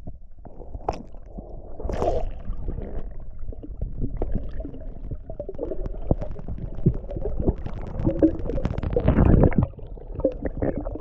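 Muffled underwater sound picked up by a camera held below the surface: low rumbling water movement with many small clicks and knocks. It swells louder near the end, then drops off sharply.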